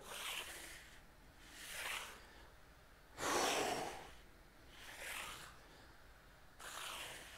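A man breathing hard from exertion: five short, noisy breaths, roughly one every one and a half seconds, the strongest a little past three seconds in.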